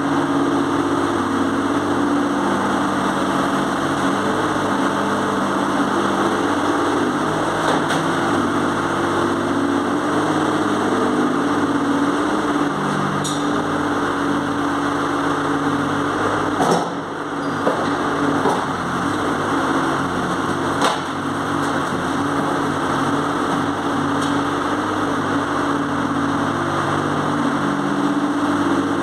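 The diesel engine of a 1998 JCB 803Plus mini excavator running steadily while it works its arm and bucket, with a few sharp knocks and clanks from the digging, the loudest about 17 seconds in.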